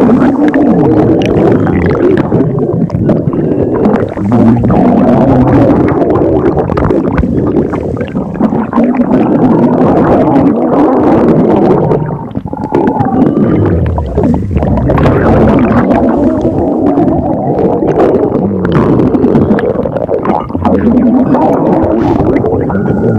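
Loud stomach growling with squealing, wavering tones that glide up and down, mixed with gurgles, running almost without a break apart from a short dip about twelve seconds in.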